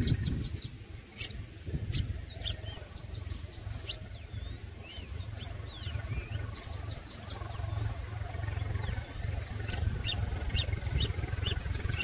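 Red-whiskered bulbul nestlings begging with a rapid, irregular series of short, high, thin chirps, some sliding down in pitch, over a steady low rumble.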